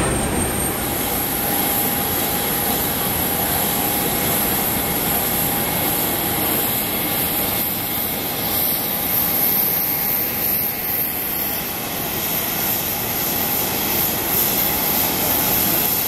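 Steady jet-turbine engine noise with a faint constant whine, running evenly without rising or falling.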